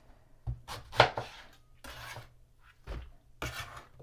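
Kitchen knife cutting eggplant on a cutting board: a few separate, irregular knocks and a short scrape, the loudest about a second in.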